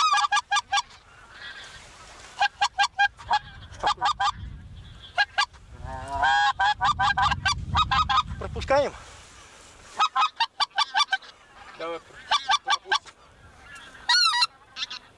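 Geese honking in quick runs of short, sharp honks, from a flock passing overhead and from the hunters' wind-blown goose calls answering it. A higher, wavering call comes near the end.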